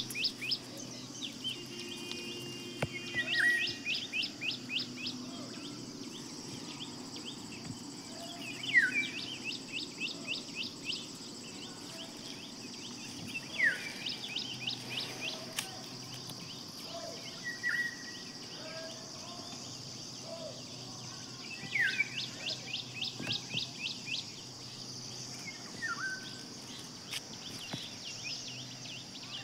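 Birds calling outdoors: quick runs of high chirps, each with a short falling note, coming back every few seconds. A steady high insect drone runs under them.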